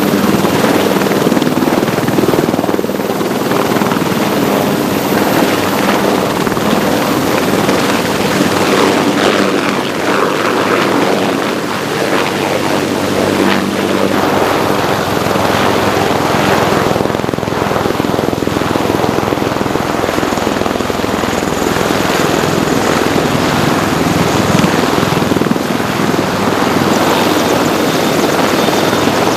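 Military helicopter rotors and turboshaft engines running close by, a loud steady rush with a thin high turbine whine. The sources are a US Marine Corps AH-1Z Viper attack helicopter lifting off and flying low past, then a UH-1Y utility helicopter turning on the deck. A second, lower whine comes in near the end.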